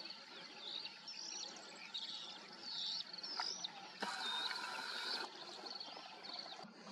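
Songbirds chirping faintly in the open countryside, with short repeated calls throughout. About four seconds in, a hiss lasting just over a second rises over them.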